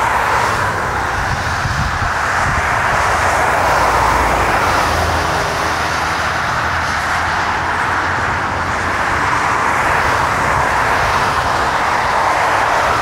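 Jet airliner engines running at high power out of sight, a steady roar with a deep rumble underneath that holds level throughout.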